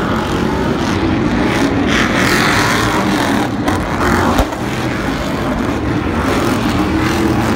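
Stadium Super Truck engines running hard at race speed as several trucks race past on the dirt track, with a single sharp knock about four and a half seconds in.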